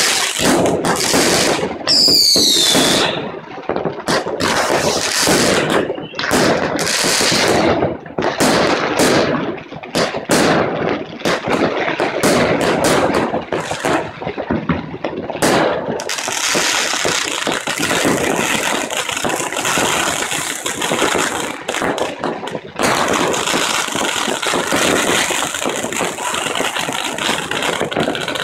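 Fireworks going off in quick succession: sharp bangs and crackling, with a falling whistle about two seconds in. From about halfway through, a dense, unbroken crackling takes over.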